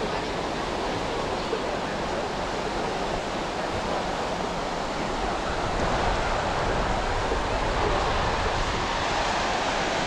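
Ocean surf washing onto the beach, a steady rush of breaking waves that swells a little about six seconds in.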